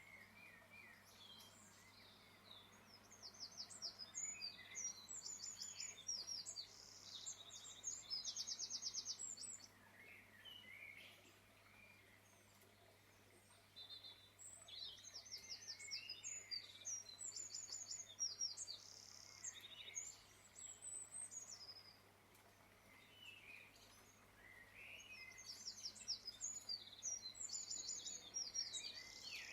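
Small birds singing, with fast high-pitched trills and short chirps in three bouts separated by quieter pauses.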